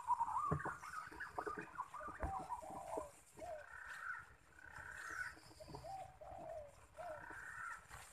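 Green pigeons calling with many short, fluting whistled notes that glide up and down and overlap. The calls are thickest over the first three seconds and come more sparsely after that.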